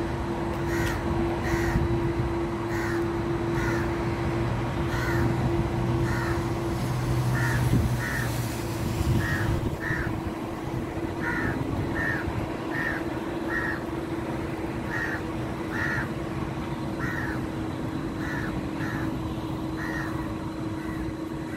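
A bird calling over and over in short notes, often in pairs, about one call a second, over a steady hum and a low outdoor rumble.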